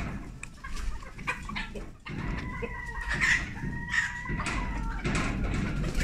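Chickens clucking as the flock moves about, and about two seconds in a rooster crows, one long call lasting about three seconds.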